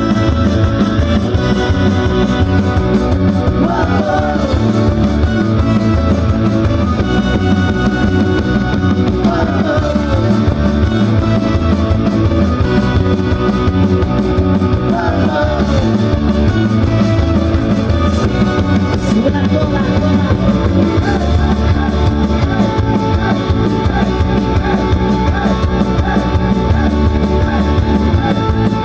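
A live band playing a loud, upbeat rock number with electric guitar over a drum kit, driving steadily without a break.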